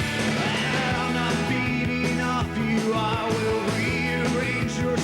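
Background rock music with electric guitar and a steady beat, with a singing voice.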